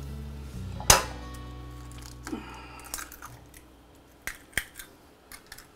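Background music fading out, with a loud knock about a second in. Then come a few sharp taps and clinks as eggs are cracked on a ceramic bowl and dropped in.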